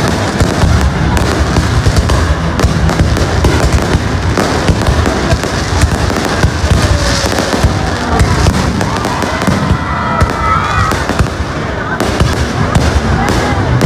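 Fireworks display: a rapid, unbroken barrage of aerial shell bursts, bangs and crackling overlapping one another.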